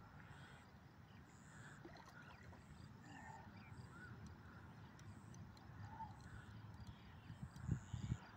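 Near silence: faint outdoor ambience of a low, uneven rumble with a few soft, short chirps scattered through it, and a couple of low thumps near the end.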